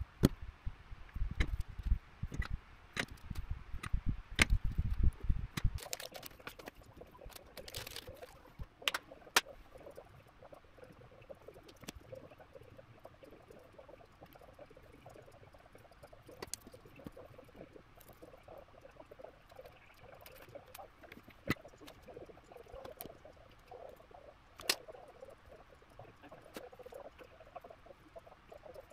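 Light clicks and taps of tweezers, soldering iron and tiny parts on a circuit board and desk during hand soldering. Dull low knocks and bumps from handling the board come in about the first six seconds; after that only scattered sharp ticks.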